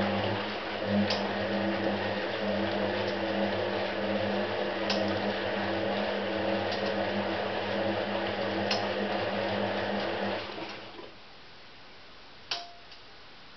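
Hotpoint 18371 Super Electronic washing machine's motor turning the drum during a rinse, a steady hum with the wet load tumbling, stopping about ten seconds in. A single sharp click follows near the end.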